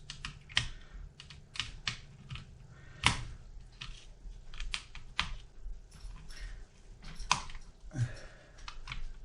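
Irregular small clicks and taps, several a second, with louder taps about three seconds in and again past seven seconds: a small screwdriver and screws being worked in an opened laptop.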